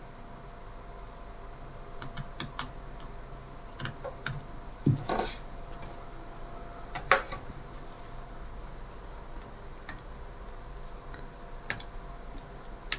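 Scattered light clicks and taps of a laptop's plastic case and parts being handled, over a faint steady hum.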